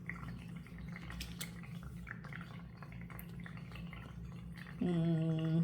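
Tarot cards being handled and laid out on a table: faint scattered taps and clicks. Near the end a short, steady hummed "mmm" from a woman's voice.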